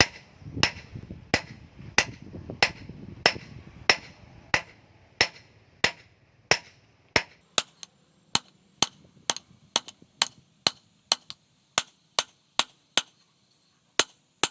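Blacksmith's hammer striking an axe head on the anvil in a steady rhythm, about three blows every two seconds at first, then quickening to about two a second in the second half.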